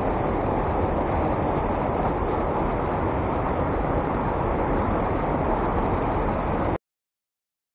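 Muddy floodwater rushing and churning over a small concrete weir on a river swollen by heavy rain, a loud steady roar of falling water. It cuts off suddenly near the end.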